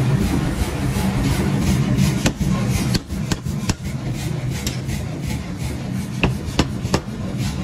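Mechanical power forging hammer striking a red-hot steel bar on its anvil: sharp strikes at irregular spacing over a steady low machine hum, the strikes standing out more clearly from about two seconds in.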